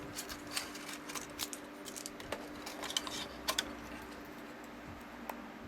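Light plastic clicks and rattles, scattered and irregular, as dummy ink cartridges are pulled out of an inkjet printer's cartridge bay, over a steady low hum.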